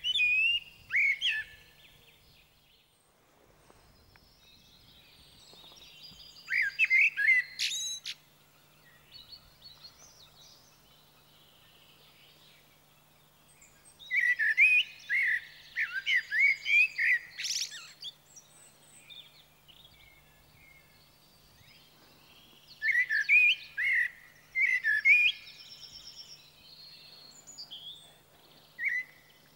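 Common blackbird (Turdus merula) singing: four warbling phrases several seconds apart, two of them ending in a brief, very high twitter, then a single short note near the end.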